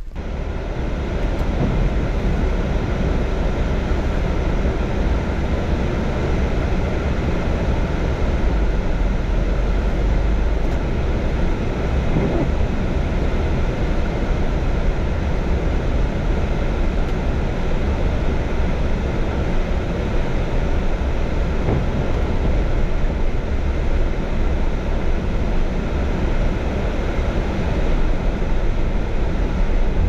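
Land Rover Discovery driving on a snow-covered road, heard from inside the cabin: steady engine and tyre noise that comes up within the first second and then holds level.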